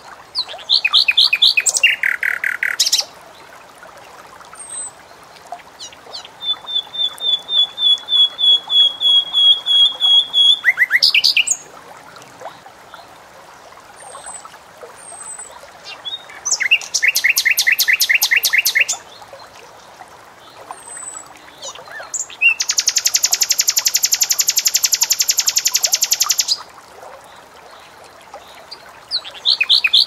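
Common nightingale singing in separate loud phrases a few seconds apart: a long run of repeated whistled notes that grows louder over about five seconds, fast rattling runs of notes, and a very rapid trill of about four seconds, with soft short notes between the phrases.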